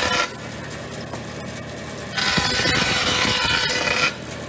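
A 36-inch band saw running, with a pine board pressed sideways against the moving blade to score saw marks into its smooth milled face for a rough-sawn look. There are two loud passes of the board against the blade: one ending a moment in, and one from about two seconds in to about four seconds in. Between the passes the saw runs more quietly on its own.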